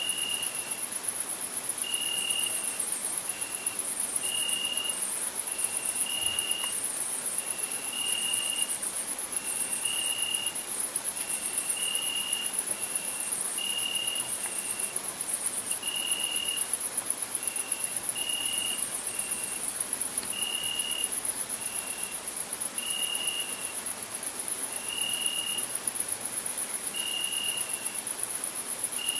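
Crickets chirping: a dense, steady high-pitched chorus, with a clearer, lower note repeating about once a second.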